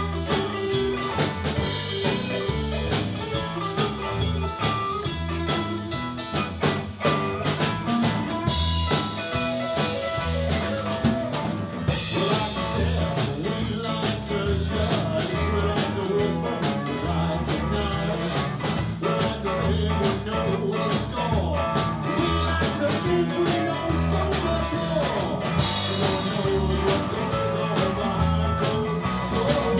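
A live blues band playing: electric guitar, electric bass, keyboard and drum kit, with a singer at the microphone.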